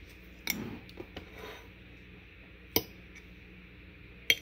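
Metal fork clinking against a ceramic plate as food is served onto it: a few short, sharp clinks, with two clear ones about three seconds in and near the end, the last the loudest.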